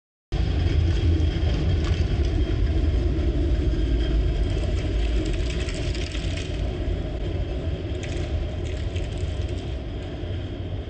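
Tram's steel wheels rumbling and grinding on the rails as it passes close by at low speed. The sound starts abruptly and eases off gradually over the last few seconds as the tram moves away.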